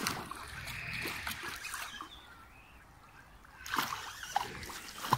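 A hooked pike splashing and thrashing at the water's surface as it is played in on a rod. The splashing grows louder from about three and a half seconds in.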